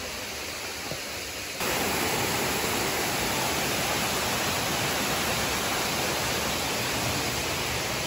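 Steady rush of a waterfall cascade: an even hiss that jumps abruptly louder about a second and a half in, then holds.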